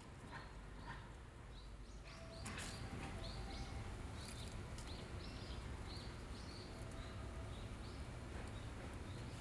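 A small bird chirping over and over in short, high calls, about two or three a second, starting about two seconds in, over a steady low outdoor hum. A few brief scratchy rustles come around the same time.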